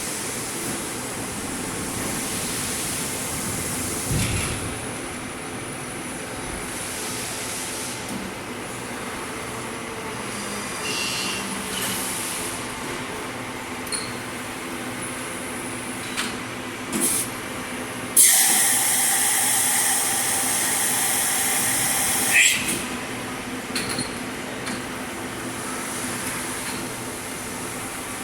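Correa FP-50/60 CNC bridge milling machine running with a steady mechanical hum and occasional clicks. About two-thirds of the way in, a loud hiss starts suddenly, lasts about four seconds and stops with a click.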